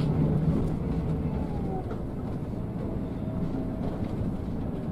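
Cabin noise of a Scania K360 coach crawling over a broken, potholed road: the diesel engine running low and steady while the body rattles and jolts over the rough surface.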